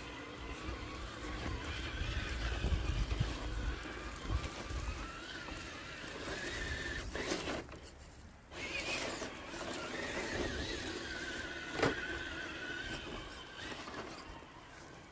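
Radio-controlled crawler's electric drive motor and gears whining as it is driven, the pitch rising and falling with the throttle, with a low rumble underneath. The whine drops away briefly about halfway through, and there is a single sharp click a few seconds later.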